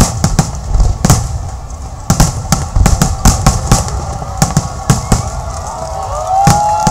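Aerial fireworks going off: a rapid string of sharp bangs and crackles, several a second. A held, slightly wavering tone comes in near the end.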